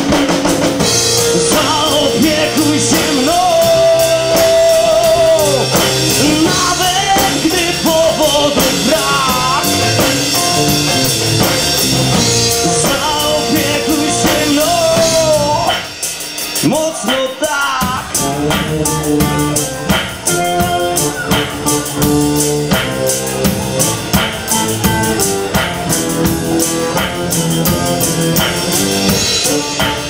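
A live band playing a blues-rock song: a man singing over acoustic guitar, electric bass and a Pearl drum kit. The sung lines with held, wavering notes fill the first half; about halfway through the sound briefly thins, then the band plays on with steady drum hits.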